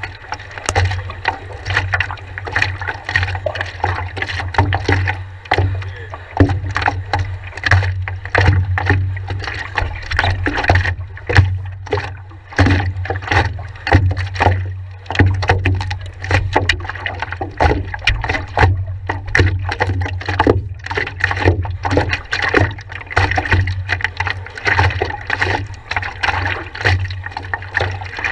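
Water slapping and splashing against the nose of a stand-up paddleboard and a camera mounted on it, in quick irregular bursts over a steady low rumble.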